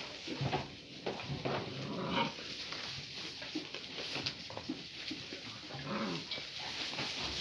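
Great Pyrenees puppies and their mother at play, giving scattered short whimpers amid rustling in straw bedding.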